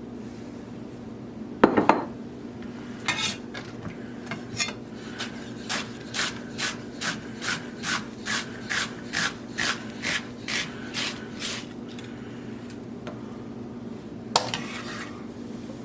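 Chef's knife cutting vegetables on a wooden cutting board: about twenty cuts at roughly two a second, with a single knock on the board before and after.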